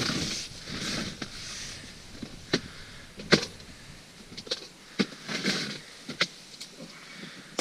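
Handling noises: soft rustling, with four or five sharp clicks and taps.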